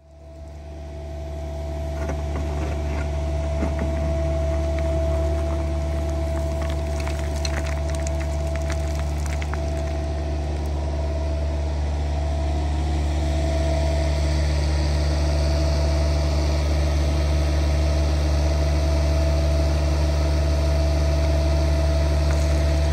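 SANY SY50U mini excavator's diesel engine running steadily under load while it digs, with scattered clicks and knocks of the bucket working through soil and rocks between about two and ten seconds in.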